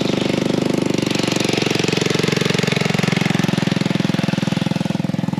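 A small engine running steadily close by with a fast, even chug, easing off a little near the end.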